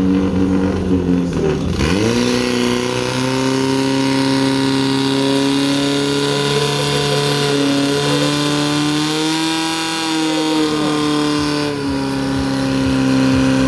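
Portable fire pump's petrol engine running close by at full speed: it dips and then revs up sharply about two seconds in, holds high revs while pumping water through the hose lines to the jets, and eases down a little near the end.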